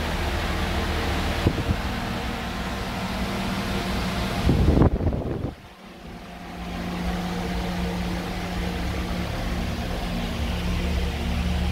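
Steady machine hum with a noisy rush over it. It swells briefly a little before five seconds in, drops out for about a second, then comes back steady.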